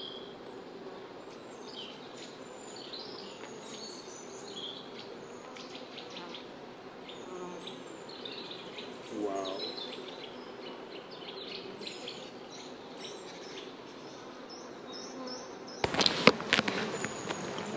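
Honeybees buzzing at an open hive as a frame of bees is lifted out, a steady hum with one louder buzz swelling briefly about nine seconds in. Near the end a louder patch of clicks and handling noise comes in.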